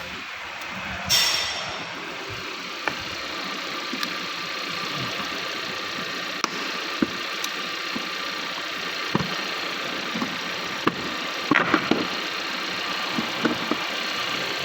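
2019 Kia Sportage engine idling steadily after a no-start fixed by reseating a loose starter-motor relay, with scattered sharp clicks and one loud brief rasping clatter about a second in.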